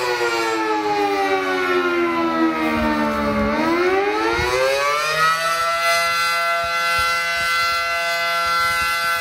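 A siren wailing. Its pitch falls slowly for the first three and a half seconds, climbs again over the next two, then holds steady on a high note.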